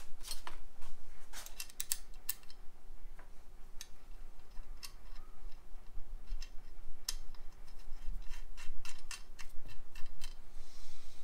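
Light metallic clicks and clinks, irregular and sometimes several a second, as a VW Beetle drop spindle and its disc brake bracket are handled and fitted together by hand.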